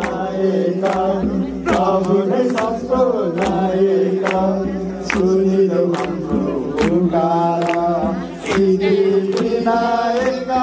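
Group singing an aarti bhajan over a steady held drone, with a regular percussion stroke a little faster than once a second.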